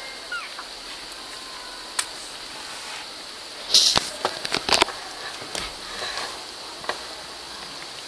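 Steady hiss with a cluster of sharp rustles and clicks about four seconds in, and a few single clicks. A faint short squeak near the start.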